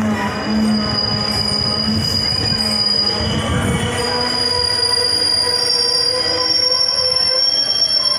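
Passenger train's wheels squealing in a steady high-pitched whine as the coaches run slowly along the station platform into the stop, heard from an open coach doorway. A lower rumble underneath fades out about halfway through while the squeal carries on.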